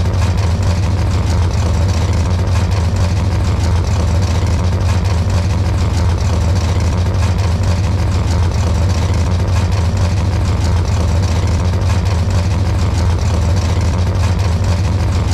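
An engine idling loudly and steadily, with a deep low hum and no change in speed.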